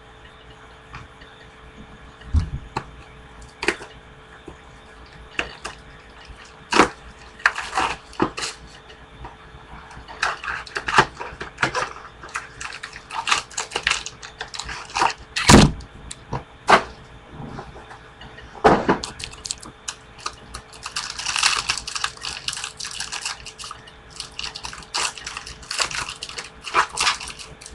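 Baseball cards being handled and sorted by hand: irregular clicks and snaps of cards being flicked and shuffled, with a stretch of crinkling pack-wrapper rustle about three quarters of the way through.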